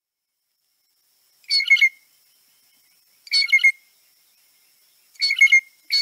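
Blue jay song, the soft "whisper song": short phrases of quick, clear notes, four of them a little under two seconds apart, the last two close together near the end.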